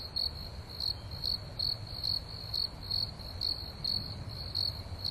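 Crickets chirping in a steady high trill that pulses a little over twice a second, over a low rumble.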